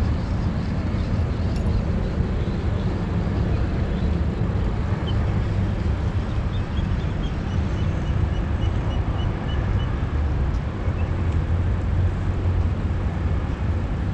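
Steady low rumbling outdoor background noise on the waterfront, with a faint run of quick high chirps near the middle.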